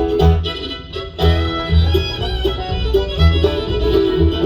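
Bluegrass band playing the instrumental close of a song, the fiddle leading over banjo and guitar with a steady rhythmic low end.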